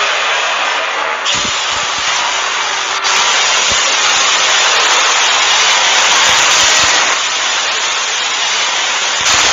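A loud, steady rushing hiss with a few low thuds mixed in, mostly in the first half.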